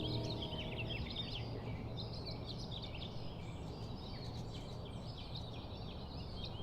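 A chorus of small birds chirping and twittering continuously over a steady low background hum. The last held notes of music die away about a second in.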